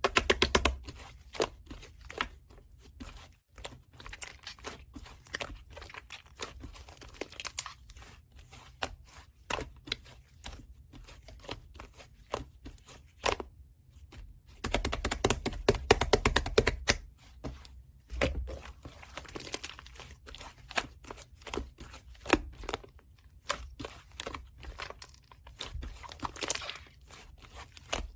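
Slime being squished, pressed and pulled by hand, giving dense crackling and popping clicks. The clicking is busiest about a second in and again around fifteen to seventeen seconds in.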